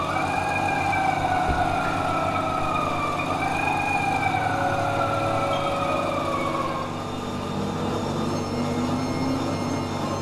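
Oil pumpjack working: its metal parts squeal in long whining tones that slowly rise and fall twice with the beam's stroke, fading out about seven seconds in, over a steady low hum.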